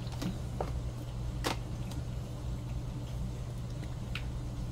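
A few scattered light clicks and taps from handling craft supplies on a tabletop, the sharpest about a second and a half in, over a steady low hum.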